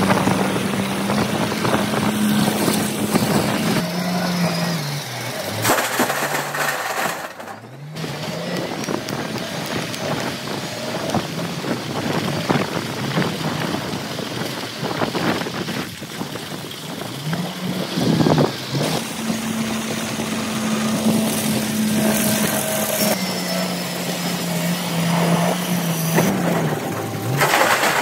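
Heavy machinery running. Its motor hum steps up and down in pitch in two similar cycles, over continuous loud clatter and knocking.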